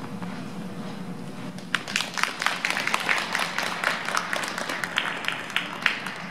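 Audience clapping, starting about two seconds in and fading near the end, with separate sharp claps standing out from a small crowd, over the steady hum of the rink.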